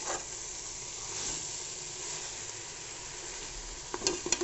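Chopped vegetables and marinated soya chunks sizzling in oil in a metal pressure cooker, a steady frying hiss. Near the end a spoon knocks and scrapes against the pot a few times as stirring begins.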